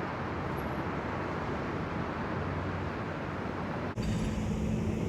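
Steady outdoor urban background noise with a traffic-like rumble. About four seconds in it cuts abruptly to a different steady background with a low hum.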